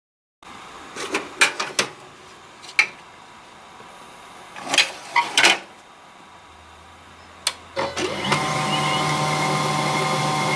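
A few clicks and knocks, then about eight seconds in an HP LaserJet 1022 laser printer starts its mechanism and runs steadily, a mechanical whir carrying several held tones: the squeaking the printer has developed.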